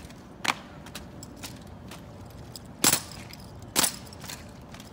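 Sharp slaps of hands striking drill rifles as a marching squad works through a silent rifle routine. There is one lighter crack about half a second in, then two loud ones a little under a second apart near the three-second mark, over a low steady background.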